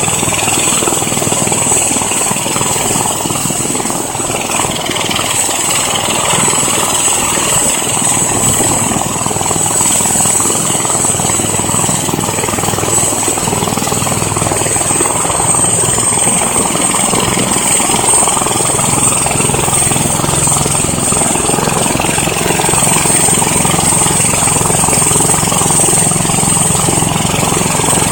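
Airbus (Eurocopter) EC-145 helicopter running on the ground, its twin turbine engines giving a steady high-pitched whine over the continuous noise of the turning rotor.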